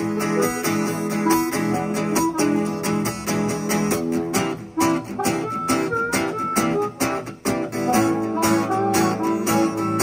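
Acoustic guitar strumming steady chords while a harmonica plays a melody line of held notes over it.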